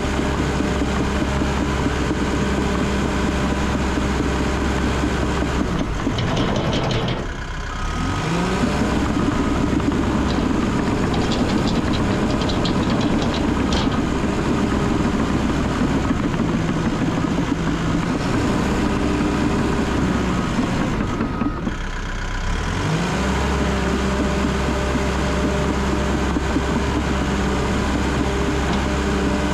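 Cat D3 bulldozer's diesel engine running steadily under load, heard from the cab. Its pitch sags twice, about seven and twenty-two seconds in, then climbs back up.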